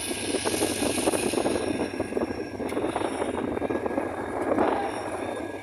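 Train pulling out of a station: a steady diesel locomotive drone under dense, rapid rattling and clatter from the moving coaches and wheels.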